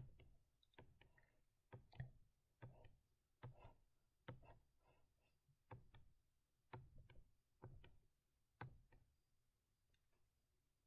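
Near silence with about fifteen faint, short clicks and taps at uneven intervals, from the digital drawing setup as whiskers are stroked in one by one.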